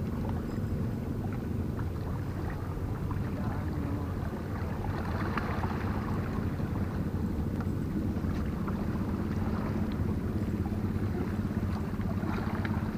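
Steady low drone of a boat engine running, an even hum that holds through the whole stretch.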